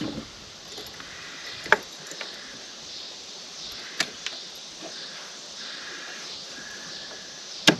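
A few sharp clicks over a faint background hiss, the loudest near the end, as the mower's ignition key is switched on and the PTO switch is pulled.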